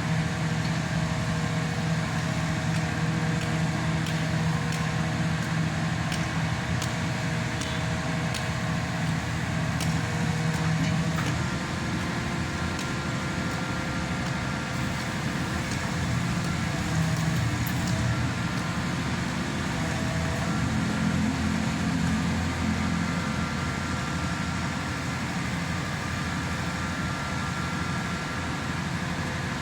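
Hydraulic static pile driver's engine and hydraulic pump running steadily, the pitch of its hum shifting about eleven seconds in.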